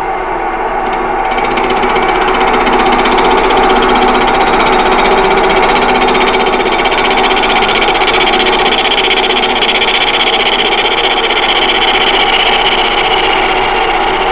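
Oneway wood lathe spinning an eccentric, off-centre wood blank, with a detail gouge cutting into the spinning wood. The unbalanced work makes a loud, steady running sound with a fast vibration.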